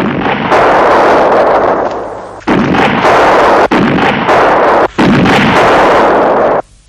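War-film battle soundtrack: loud artillery shell explosions and mortar fire, several blasts one after another, each broken off abruptly at a cut.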